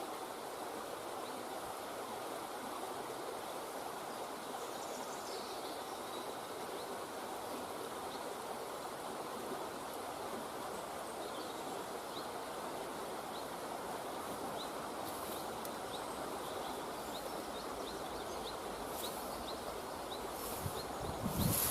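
Steady rushing outdoor background noise, with faint short high chirps, about two a second, in the second half and a sharper, louder knock right at the end.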